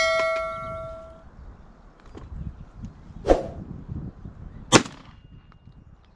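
A bell-like ding from a subscribe-button animation rings and fades over the first second. Then two shotgun shots come about a second and a half apart, the second sharper and louder.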